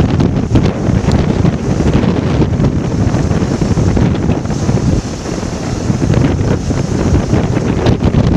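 Strong wind buffeting the camera's microphone: a loud, continuous low rumbling rush of noise with gusty ups and downs.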